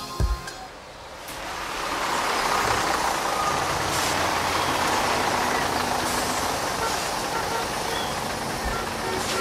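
Road traffic noise with a bus engine running, fading in about a second in and then holding steady.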